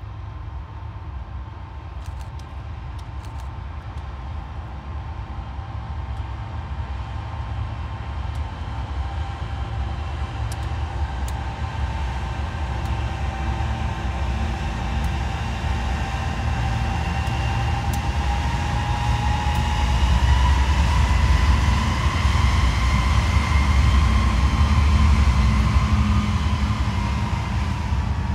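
Freeport-McMoRan EMD GP38 diesel locomotives coming down a steep grade, their non-turbocharged engines rumbling under a steady whine typical of dynamic braking, growing louder as they approach. Near the end the whine drops in pitch as the locomotives go by and the freight cars begin rolling past.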